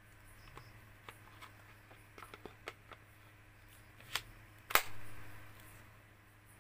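Light plastic clicks and rattles from a cordless drill and its battery pack being handled, then a sharp snap about two-thirds of the way through as the INGCO 20V slide-on battery latches into the drill's base.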